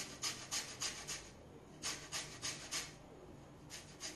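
Lemon peel grated on a metal box grater: quick scraping strokes, about three a second, in short runs broken by brief pauses.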